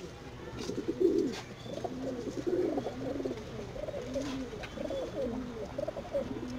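Several domestic pigeons cooing, their low coos overlapping and repeating.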